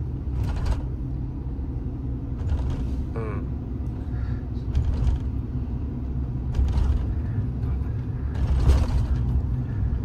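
Steady road and tyre rumble inside a Haval Raptor's cabin while driving, with a few light bumps. The rear suspension no longer clunks over bumps now that the seized eye bushing on the aftermarket rear shock has been replaced.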